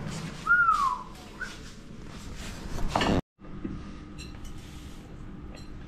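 Utensils clinking and scraping on foil trays and dishes as food is served, with a short high falling squeal about half a second in. The sound cuts out abruptly about three seconds in, and a faint steady hum follows.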